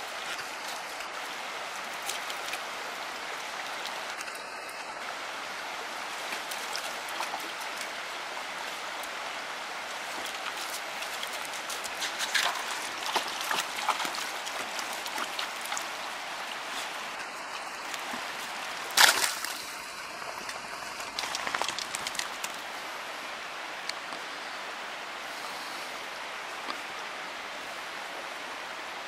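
Shallow rocky stream babbling steadily, with splashes from a German Pinscher wading through it around the middle and one sharp knock a little after.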